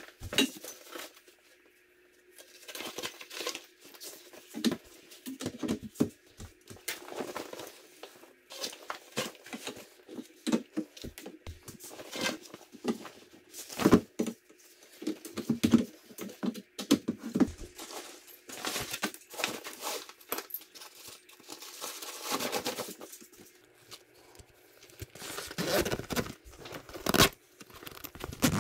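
Irregular rustling and crinkling of the Urban Worm Bag's black fabric as it is handled and fitted onto its tubular frame, in quick uneven strokes with a few short pauses.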